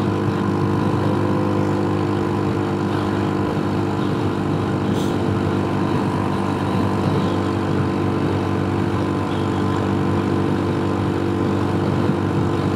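Honda Super Cub C125's single-cylinder engine running at a steady cruising speed, its pitch unchanging, under a constant rush of riding wind.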